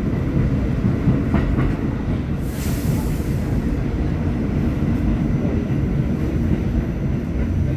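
Subway train running along the rails, heard from inside the car: a steady low rumble of wheels on track, with a brief hiss about two and a half seconds in.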